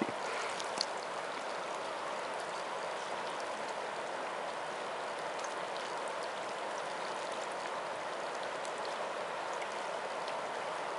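Steady rushing of a wide, fast-flowing river's current.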